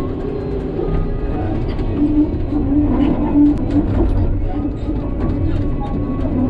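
Hidromek 140 excavator's diesel engine and hydraulics running steadily, heard from inside the cab, with a louder droning tone for a second or so in the middle.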